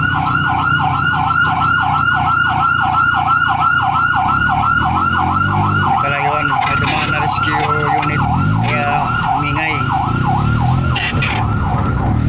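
Rescue vehicle siren in a fast up-and-down yelp of about four cycles a second, heard loud from inside a car, fading out near the end. The car's engine runs steadily underneath.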